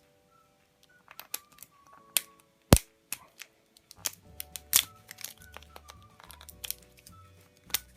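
Light background music with a high wavering melody, a bass line coming in about halfway, over sharp crackles and clicks of a surprise egg's packaging being handled and cracked open. The loudest is a single sharp crack a little before the middle.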